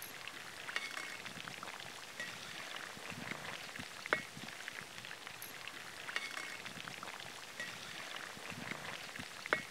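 Chicken pakora deep-frying in hot oil: a steady sizzle full of small crackling pops. The slotted spoon knocks against the pan twice with sharp taps, about four seconds in and near the end.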